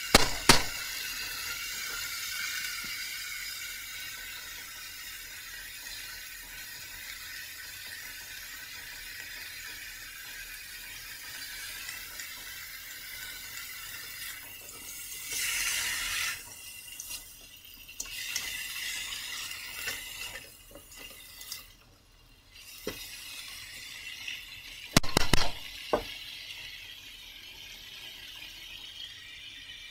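Chayote strips, ground meat and tomato sizzling in a nonstick wok, a steady hiss, with a few sharp clacks of a spatula against the pan near the start and again later.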